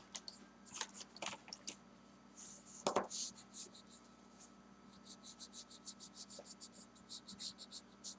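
Wax crayon scratching on paper in short back-and-forth colouring strokes, with one louder knock about three seconds in. The second half is a quick, even run of strokes, about five a second.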